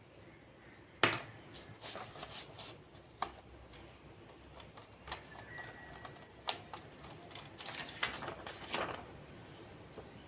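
Scattered sharp clicks and knocks of laptop parts being handled, the loudest about a second in.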